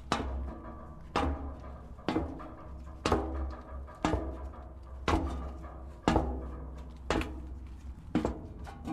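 Footsteps on metal stairs: slow, even steps about one a second, each a clang that rings on briefly, over a low steady hum.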